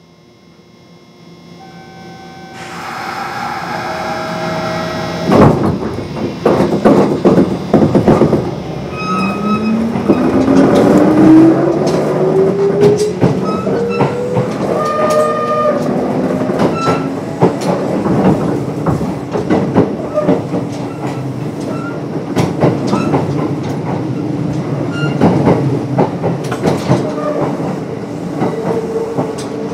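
Kintetsu 8800 series electric train (field phase control) pulling away. The traction motors give a whine that rises in pitch as it accelerates, the wheels clack over rail joints, and it then runs at a steady speed. Heard on board.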